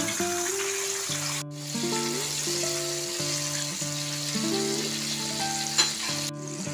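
Whole tilapia deep-frying in hot oil: a steady sizzle that cuts out for a moment twice, about one and a half seconds in and near the end. Background music with a melody of held notes plays over it.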